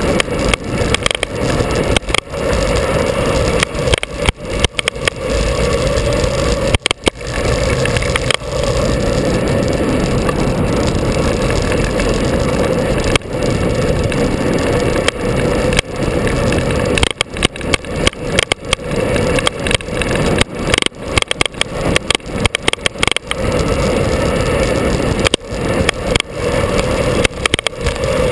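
Onboard sound of a vehicle driving a winding mountain road: its engine runs with a steady drone under a dense haze of road and wind noise. The sound is broken by many brief dropouts.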